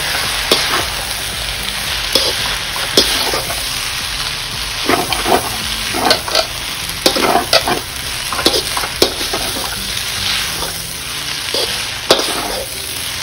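Chow mein noodles with chicken and vegetables stir-fried in a wok over high heat: a steady sizzle, broken by irregular scrapes and clinks of the metal spatula against the pan as the noodles are tossed.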